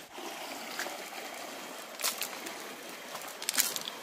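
Steady rushing of a flowing river, with a few sharp knocks about two seconds in and a quick cluster of them near the end.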